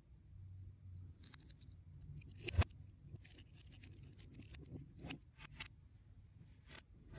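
Lego bricks clicking and snapping as a small black Lego ship model is pulled apart by hand: a string of small plastic clicks, with one louder snap about two and a half seconds in.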